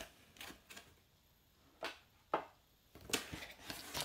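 Faint handling of a cardboard snack subscription box being opened: a couple of soft knocks, then a cluster of small rustling, clicking handling sounds near the end.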